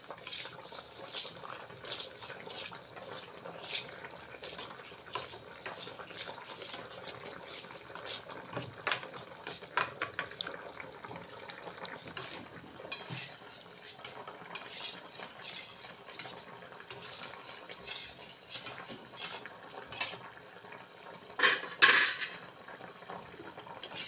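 A spoon clinking and scraping against metal bowls and dishes as a mixture is stirred, in scattered light clinks. A louder clatter comes near the end.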